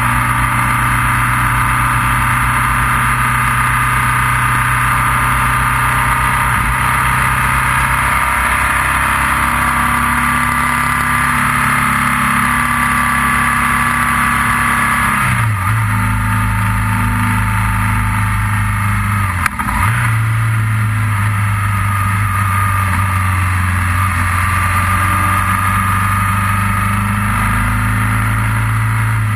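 Motorcycle engine running steadily under way. Its pitch steps down about halfway through, as at a gear change, and dips briefly once more a few seconds later.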